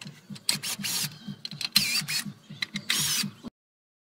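A power tool running in about four short bursts, each with a sliding whine, as the intake manifold bolts are backed out, over a faint rhythmic rattle. The sound cuts off abruptly about three and a half seconds in.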